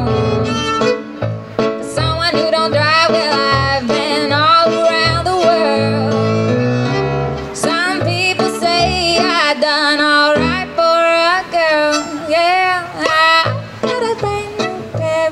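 Live acoustic-pop music: a Yamaha electric keyboard and a violin playing together, with melodic violin lines and possibly wordless vocals over the keyboard's steady bouncing accompaniment.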